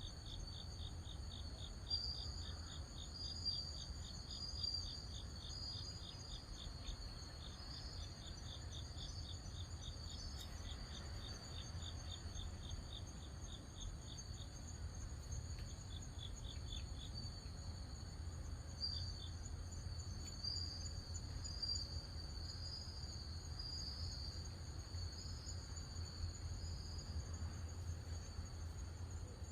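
Crickets or other night insects chirping: a continuous high-pitched trill, with a rapid, evenly pulsed chirp that stops about halfway through and comes back briefly twice. A steady low rumble runs underneath.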